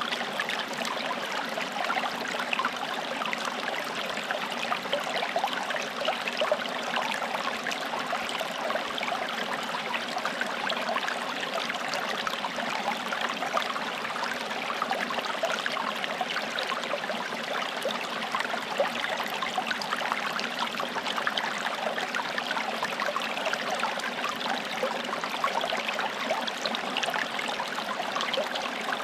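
Forest stream flowing and babbling over stones, a steady rush of water full of small splashes and trickles.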